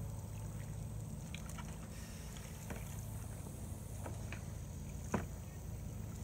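Faint splashes and drips of a double-bladed kayak paddle dipping into calm water, as scattered short ticks over a low steady hum. A sharp tap about five seconds in is the loudest sound.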